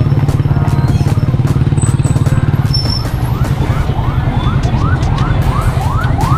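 A motor vehicle's engine running close by with a fast, even throb. From about halfway a siren-like rising yelp repeats about three times a second.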